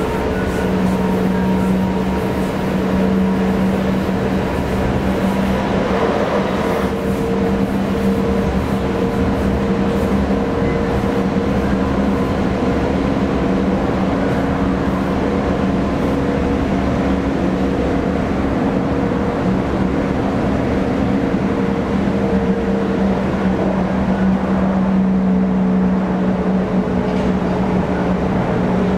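Metro-Cammell Class 465 Networker electric multiple unit heard from inside the carriage while running at speed: a steady hum of several held tones from the traction equipment over the rumble of wheels on rail. About six seconds in, a short hiss rises and cuts off.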